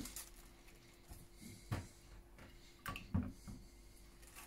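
A few faint soft knocks and scrapes of a spoon scooping frozen vanilla ice cream out of a metal tin and setting the scoop into a glass bowl, over a faint steady hum.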